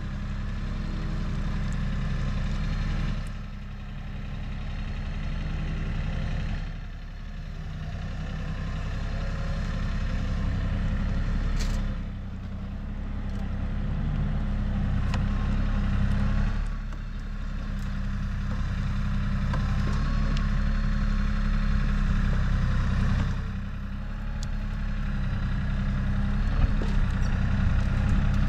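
An engine running steadily, its level swelling slowly and dipping briefly every few seconds.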